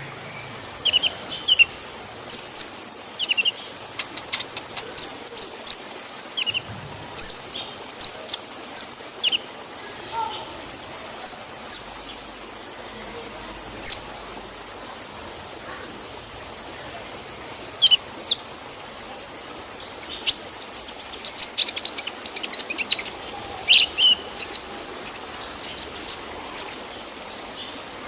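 Sunbird (kolibri ninja) giving sharp, high chirps and short twittering phrases. The calls thin out for a few seconds in the middle, then come as a fast rapid run a little past the middle. A faint steady hiss of falling water runs underneath.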